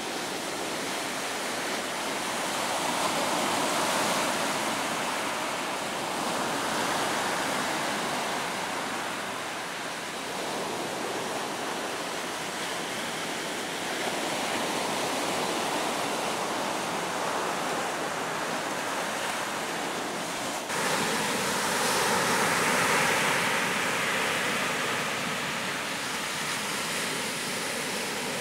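Atlantic surf breaking on a sandy beach: a steady wash of rushing water that swells and ebbs as each wave comes in. About three-quarters of the way through it suddenly gets louder.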